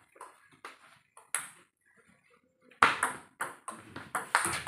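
Table tennis ball clicking sharply back and forth off the bats and the table in a fast rally that starts about three seconds in. Before it there are only a few faint taps.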